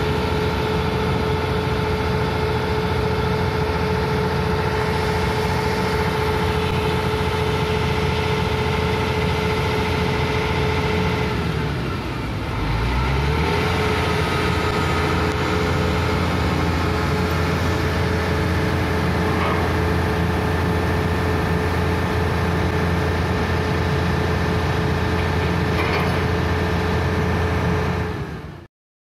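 Volvo EC480DL excavator's diesel engine running steadily with a constant whine over it. About twelve seconds in the sound dips briefly, falling then rising in pitch, before settling back, and it fades out near the end.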